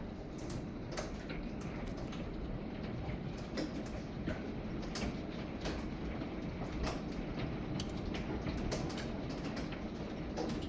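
Large hailstones striking hard surfaces and bouncing: irregular sharp knocks, several a second, over a steady hiss of heavy rain.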